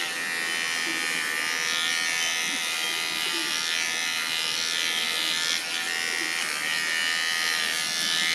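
Cordless electric pet clipper buzzing steadily as it trims the hair between a dog's paw pads, with a brief dip in level about five and a half seconds in.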